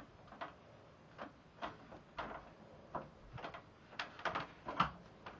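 A string of light, sharp clicks or taps at an uneven pace, about two a second, one a little louder near the end.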